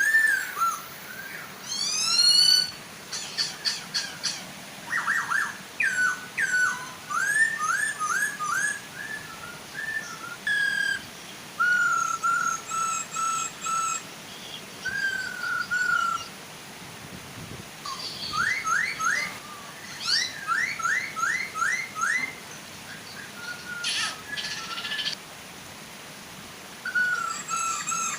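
Poksay hongkong laughingthrushes, male and female, calling in strings of clear whistled notes and fast runs of short rising strokes, with brief pauses between phrases, over the steady soft rush of a waterfall.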